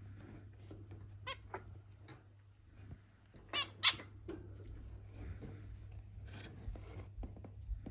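Zebra finches calling: short, nasal, harmonic-rich calls come one by one, the loudest two close together about three and a half seconds in. A steady low hum runs underneath.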